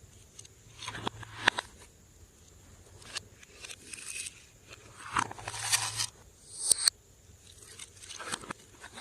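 Slime being mixed and squished by hand: short bursts of sticky crackling and squelching every second or two, with a few sharp pops.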